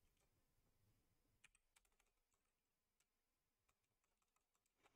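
Near silence, with a few faint computer keyboard keystrokes scattered through the middle.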